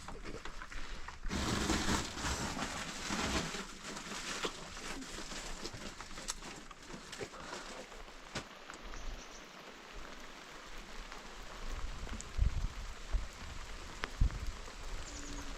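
Rain falling, with many scattered drop ticks and a heavier spell a second or two in. A few low thumps near the end.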